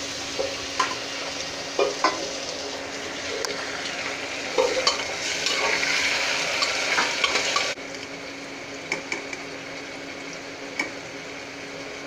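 Chopped tomatoes and green chillies sizzling in hot oil with fried onions in a pressure cooker, stirred with a metal slotted spoon that clinks against the pot now and then. The sizzle drops suddenly to a quieter level about eight seconds in.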